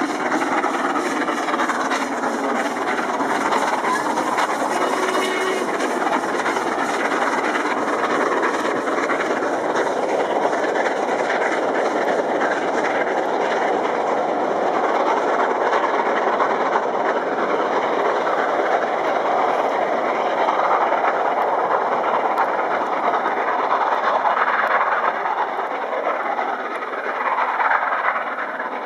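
Steam locomotive Scots Guardsman, an LMS Royal Scot class 4-6-0, working a train of coaches past at speed: a steady, loud rush of exhaust and wheels on rail that eases off slightly near the end as the train draws away.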